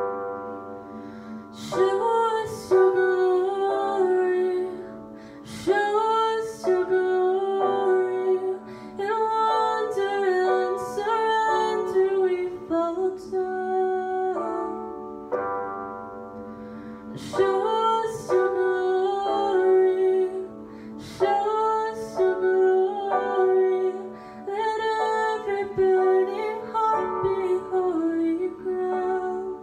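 A worship song: a female voice singing in phrases over piano accompaniment.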